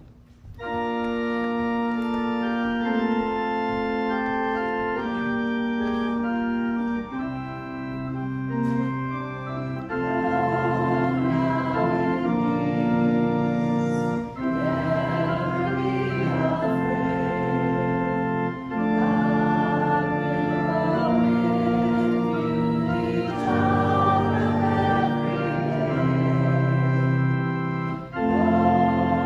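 Church organ playing the postlude after the benediction: slow, held chords that change every second or two, starting about half a second in.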